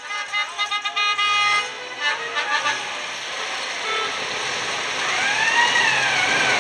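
Vintage cars driving slowly past, their engine and tyre noise growing as a vintage Peugeot tourer approaches. A horn sounds in quick pulses in the first second or so, and a rising-then-falling horn note comes about five seconds in.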